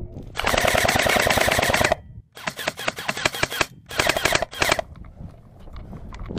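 Airsoft electric M4-style rifle (AEG) firing on full auto: three bursts of rapid shots, the first about a second and a half long, the next two shorter and broken up, ending about five seconds in.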